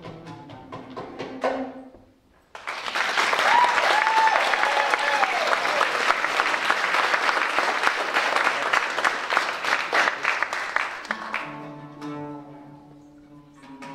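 An oud phrase ends, and after a brief pause the audience applauds loudly for about eight seconds, with a high wavering call above the clapping. The oud starts playing again near the end.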